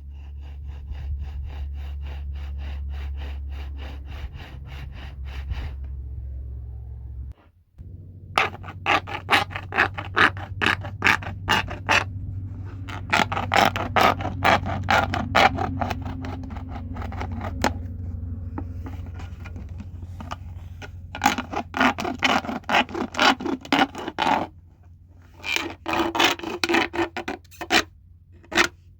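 Repeated rhythmic scraping strokes, about three to four a second, in several bursts over a low steady hum, with a brief break about seven seconds in.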